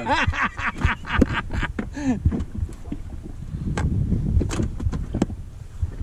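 Wind buffeting the microphone with a low rumble on the open water, and three sharp clicks in the second half.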